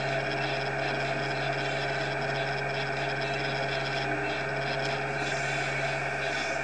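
Siloking self-propelled feed mixer wagon running with a steady, even drone, heard from inside its cab.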